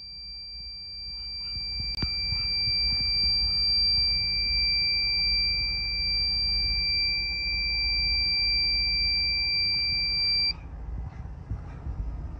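Thermo Scientific FH 40 G-L survey meter's alarm sounding: one steady high-pitched tone that cuts off suddenly about ten seconds in. It signals a gamma dose rate well above normal background.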